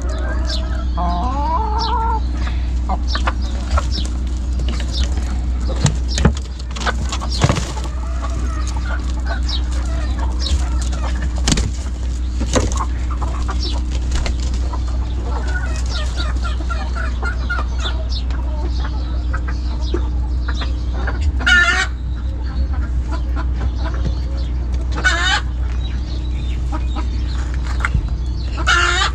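A flock of chickens clucking, with scattered sharp clicks and three louder short calls in the second half, over a steady low hum.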